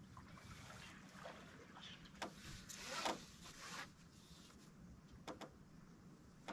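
Water sloshing quietly against the hull of a small flats skiff, swelling briefly about three seconds in, with a few light knocks.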